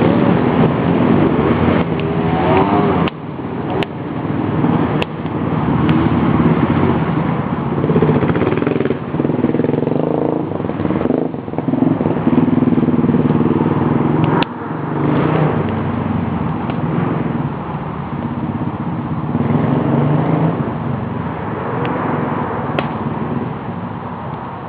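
Dirt bike engines running and revving, their pitch rising and falling repeatedly, with a few sharp knocks.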